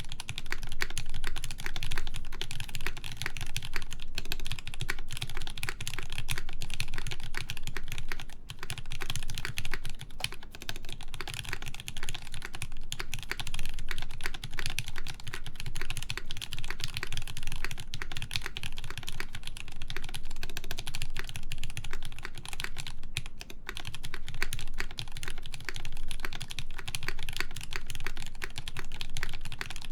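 Continuous steady typing on a CannonKeys Brutal v2 1800 mechanical keyboard: lubed JWK Lavender linear switches in an aluminium plate under GMK keycaps, giving a dense stream of irregular keystroke clacks with brief pauses here and there.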